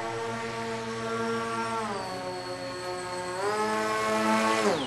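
Electric motor and propeller of an RC foam F-117 model jet whining at a steady pitch. The throttle is eased back about two seconds in and opened up again a little after three seconds. Near the end it is cut, and the pitch falls steeply away as the motor spins down.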